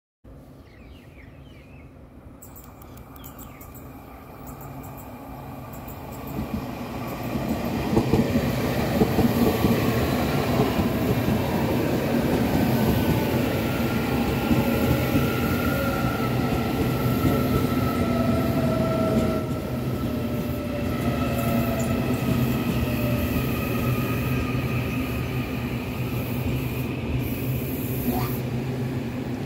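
Taroko Express tilting electric multiple unit approaching and running past on the rails. Its rumble builds over about eight seconds and then stays loud and steady, with a few thin high tones over the wheel noise.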